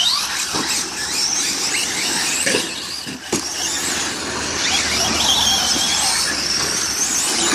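High-pitched whine of a Traxxas radio-controlled car's electric motor and drivetrain, rising and falling in pitch as the throttle is worked, with a few short knocks along the way.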